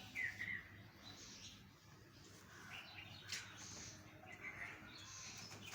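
Faint chirping of small birds: a couple of short calls just after the start, then scattered faint chirps over a low background hiss.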